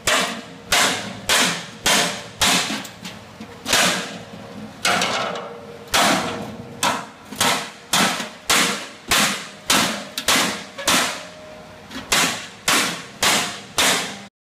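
A hammer repeatedly striking the cut sheet-metal edge of a metal barrel, about twenty blows, each with a short metallic ring. The hammering cuts off suddenly near the end.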